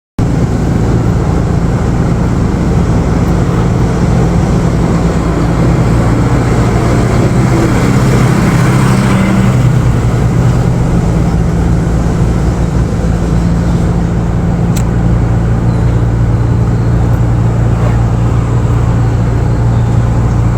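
A motor vehicle's engine runs steadily over a low rumble, and its pitch shifts briefly about eight or nine seconds in.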